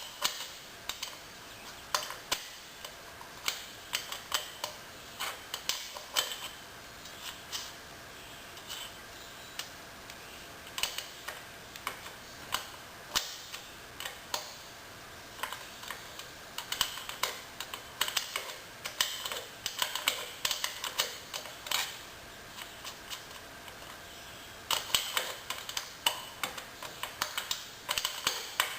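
Metal wrench clicking and clinking as it turns the rear-wheel chain adjuster bolts on a dirt bike's swingarm, in irregular runs of sharp clicks, faster and denser near the end.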